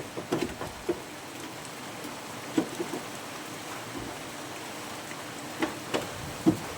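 Steady rain hiss, with a few light knocks and taps scattered through it.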